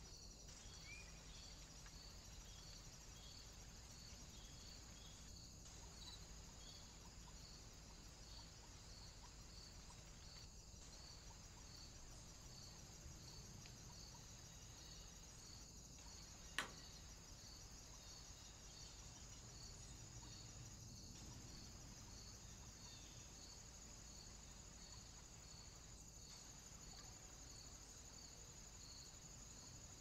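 Faint insect chirping, a steady run of evenly spaced high chirps over a faint hiss. A single sharp click comes just past the middle.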